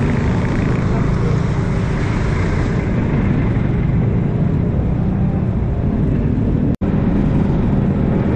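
Yamaha automatic scooter under way, its small engine running steadily beneath heavy low rumble from the moving air. The sound cuts out for a split second near the end.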